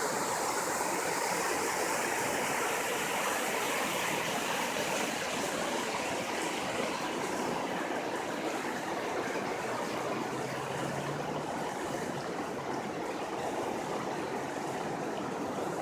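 Guadalupe River in flood, the swollen water rushing steadily.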